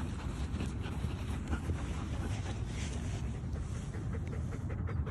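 Dog panting and scrabbling in sand, its nose down a hole after its buried ball, with scratchy sand-scraping sounds throughout.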